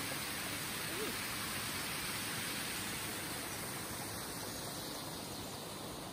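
Water rushing through a watermill's wooden sluice and race, a steady hiss that fades slightly near the end.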